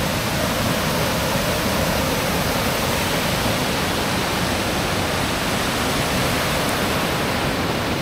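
Waterfall rushing steadily: an even, unbroken hiss of falling water.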